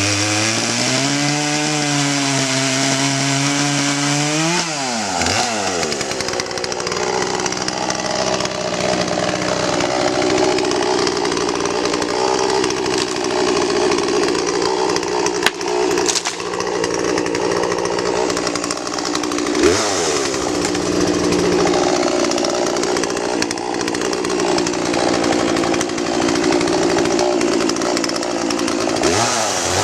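Poulan P3816 38cc two-stroke chainsaw running at a lower speed, then revving up sharply about four to five seconds in. It holds at high speed with a wavering pitch, dips briefly about twenty seconds in, and falls and rises again near the end.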